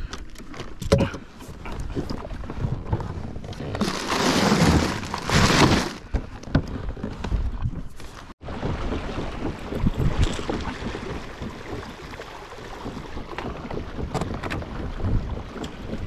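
Wind buffeting the microphone and water washing along a kayak's hull. About four seconds in there is a louder rush of noise lasting about two seconds. After a brief dropout near the middle, a steady wash of wind and water follows as the kayak moves.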